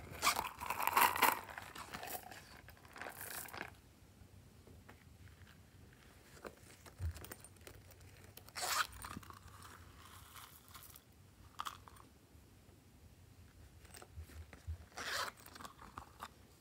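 Zippers on small silicone coin purses being pulled open, several short runs in the first few seconds and a few more scattered ones later, with soft handling of the purses in between.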